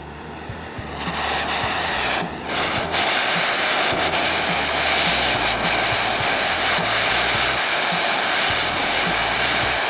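Handheld gas torch burning with a steady hiss and roar, its flame playing on a steel washer to heat it to temper colours. The flame comes on about a second in and briefly dips just after two seconds.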